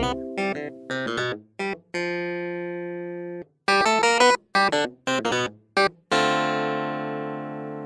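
Instrumental background music: short, separate pitched notes with brief silences between them, and two longer notes that fade slowly, one in the middle and one from about six seconds in.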